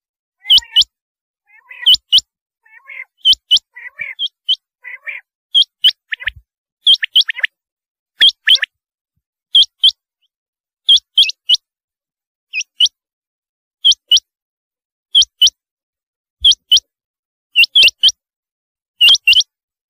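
Rain quail calling: short, sharp, high calls of two or three quick notes, repeated about every 1.3 seconds. For the first several seconds a softer, lower chirping runs between the calls.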